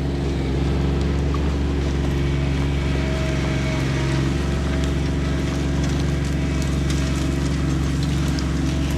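John Deere 2320 compact tractor's three-cylinder diesel engine running steadily while dragging a fallen pine stem on a pull strap, with faint scattered ticks over it.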